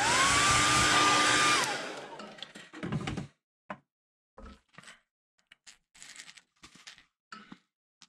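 Hair dryer switched on briefly to dry freshly airbrushed paint on a lure: its motor whine rises as it spins up, then it blows steadily for about a second and a half before it is switched off and winds down. After that come a few faint clicks and knocks of handling.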